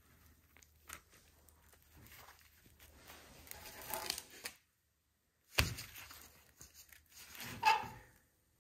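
Quiet handling noise as gloved hands work a small ratchet and a socket holding a grease fitting over a cardboard-covered bench: soft rustling and small clicks, with a sharp click about five and a half seconds in and a louder short rustle near the end.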